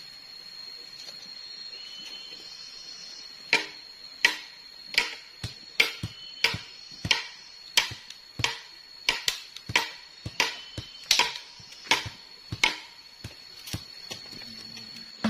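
Sugar palm fronds being chopped up for thatch: a run of sharp, dry cracking strokes, about one and a half a second, starting a few seconds in.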